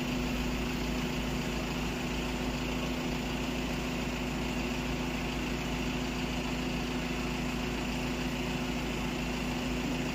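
2016 Audi A6 engine idling steadily after being started remotely from a phone app.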